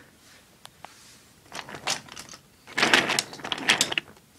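Wooden toy trains and track clattering and knocking: a couple of light clicks, then bursts of rattling clatter in the second half, the loudest near the end.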